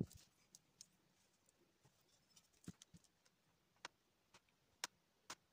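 Near silence with a few faint, scattered clicks and ticks: a thin stick touching a steel open-end wrench as its stamped lettering is worked over.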